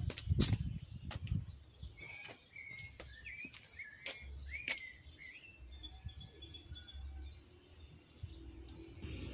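Birds chirping: a run of short, bending calls from about two to five seconds in, with fainter thin notes after. Knocks and rustles of the phone being handled come in the first second or so.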